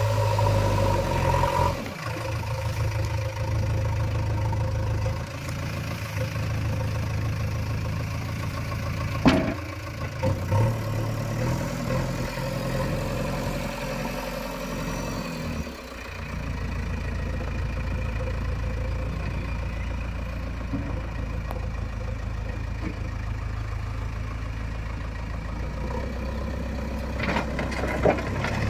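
Diesel engine of heavy earthmoving machinery running steadily at low speed. Its pitch drops about two seconds in and shifts again around ten seconds. A single sharp knock comes about nine seconds in, and another near the end.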